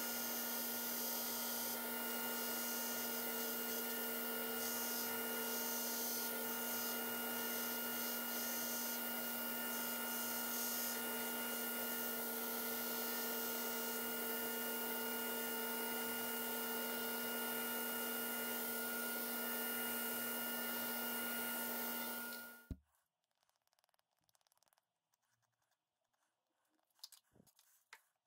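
Belt grinder running with a steady motor hum and hiss as a G10 scabbard-mouth piece is ground to shape against the belt. It stops abruptly about 23 seconds in, followed by quiet with a few faint handling clicks.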